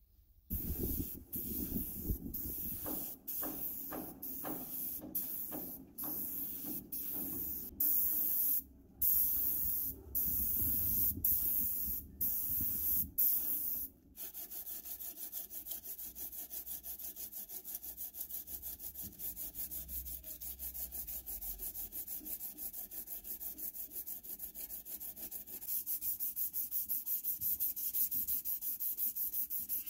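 An aerosol spray-paint can hissing in short bursts about a second apart. About halfway through it gives way to sandpaper rubbed back and forth by hand over painted sheet metal in quick, even strokes.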